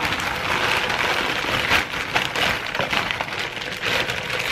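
Frozen broccoli florets poured from a plastic bag into a slow cooker's crock of creamy liquid: a dense, continuous clatter of many small knocks as the frozen pieces tumble onto each other and into the crock.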